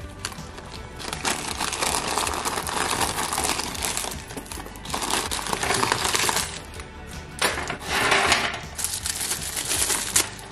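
Tissue paper crumpling and rustling in several bursts as it is pulled out of a handbag, with background music underneath.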